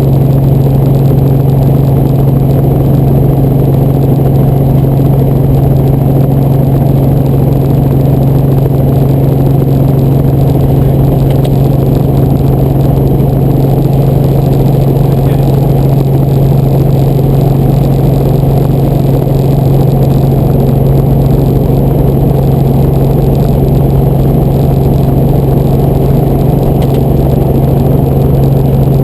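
Helicopter running at a steady pitch: a loud, unchanging drone with a strong low hum throughout.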